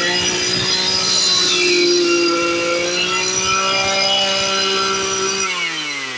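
Stihl FS 120 brush cutter's two-stroke engine running at a steady high speed, then throttled back near the end so its note falls away steadily.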